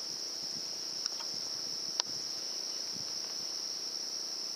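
Steady high-pitched chorus of crickets chirping at night, with one sharp click about two seconds in.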